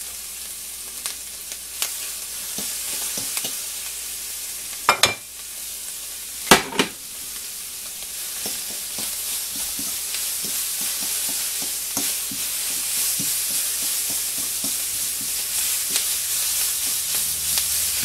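Onions, bell peppers, broccoli, potatoes, turkey kielbasa and spaghetti squash sizzling in a hot frying pan while being stirred, with light clicks of the utensil against the pan. There are two sharp knocks about a second and a half apart about a third of the way through, and the sizzling grows louder in the second half.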